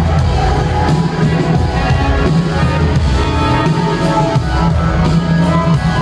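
Loud live electronic music played over a concert PA, with held chords and a heavy, steady bass.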